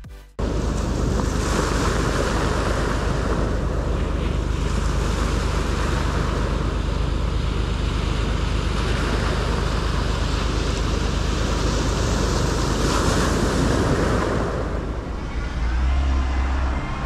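Sea surf breaking and washing up a beach of rounded pebbles, the rush of water swelling and easing every few seconds as each wave comes in.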